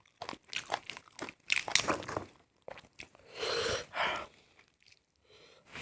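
Close-miked eating of a chicken leg: crunchy biting and chewing with many quick clicks over the first two seconds, then a drawn-out noisy mouth sound lasting about a second, about three seconds in.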